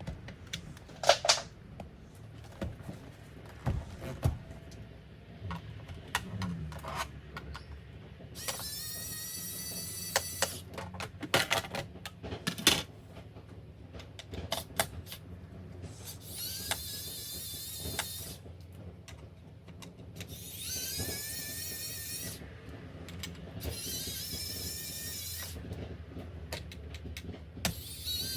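Small cordless electric screwdriver running in short whining bursts, five in all, each lasting a second or two, as it drives out laptop case screws. Clicks and knocks of handling come in between.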